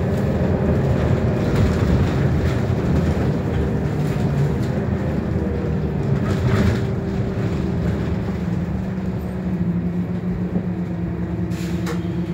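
Scania K230UB bus's five-cylinder diesel engine running as the bus drives along, heard from inside the passenger saloon. In the second half the engine settles to a steady hum, with a few short clatters from the bodywork.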